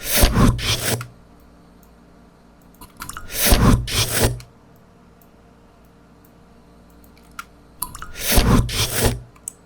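Three whoosh sound effects, each about a second long, spaced a few seconds apart.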